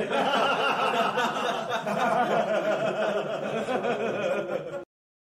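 Laughter sound effect: a continuous run of bouncing 'ha-ha' laughs lasting about five seconds, cut off suddenly near the end.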